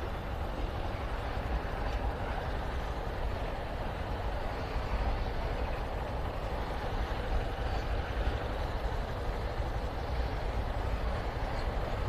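Steady wind rush on a helmet-mounted camera microphone while riding a Honda CG 160 Titan motorcycle, with the bike's running noise underneath.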